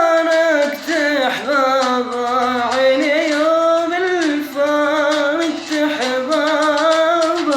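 A man's voice imitating a bowed rababa, a wavering Bedouin-style melody in held, sliding phrases of about a second each.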